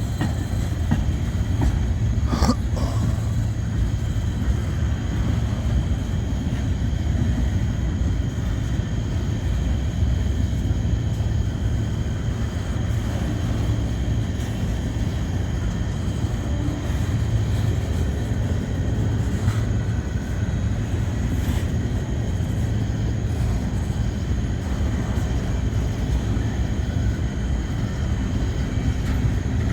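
Freight train cars rolling past, a steady rumble of wheels on rail, with a sharp click about two and a half seconds in.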